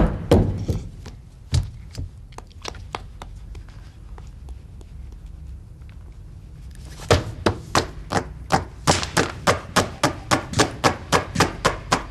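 Tapping and knocking on a tabletop, a few scattered knocks at first, then from about seven seconds in a fast steady beat of about four knocks a second.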